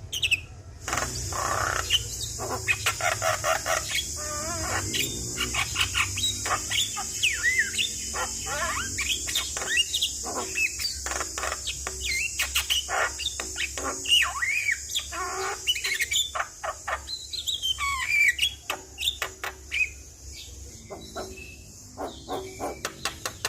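Javan myna (jalak kebo) singing: a fast run of clicks and chatter mixed with short rising and falling whistles. A steady high hiss sits behind it until near the end.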